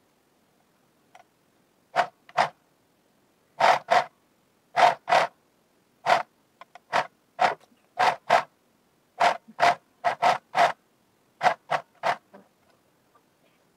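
Electric sewing machine run in short spurts, about twenty of them, mostly in pairs, as picot elastic is stitched onto knit sock fabric.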